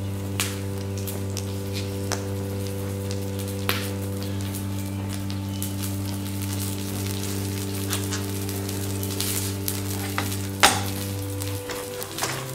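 Burning plastic toy fire truck crackling and sizzling as the plastic melts in the flames, with frequent small pops and one sharp crack near the end. Under it runs a low held drone of steady tones that shifts pitch near the end.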